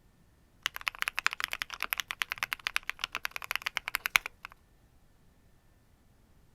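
Fast typing on a Qwertykeys QK75 custom mechanical keyboard: a rapid run of crisp keystrokes for about three and a half seconds, then it stops.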